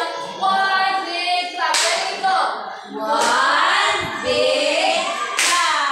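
A woman singing a classroom song with hand claps mixed in.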